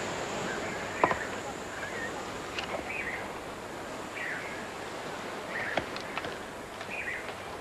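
Steady outdoor ambience with short bird chirps every second or so, and a few sharp clicks, the loudest about a second in.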